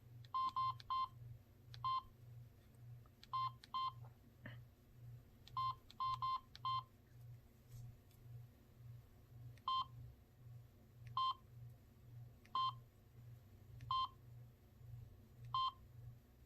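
Samsung SGH-T309 cell phone keypad tones: short, identical beeps as its buttons are pressed, some in quick runs of three or four and others a second or more apart, while its menus are navigated. A faint low pulsing hum runs underneath.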